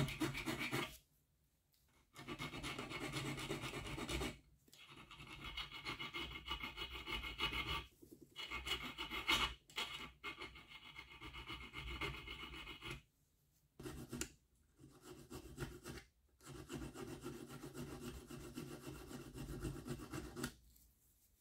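Hand file rasping over the steel blade of an old screwdriver held in a vise, reshaping its damaged tip. It comes in runs of rapid strokes lasting a few seconds, with short pauses between them.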